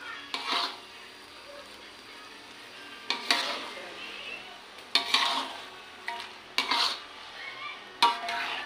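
Squid sizzling as it stir-fries in a wok, with a spatula scraping and turning it: five short scrapes, about every couple of seconds.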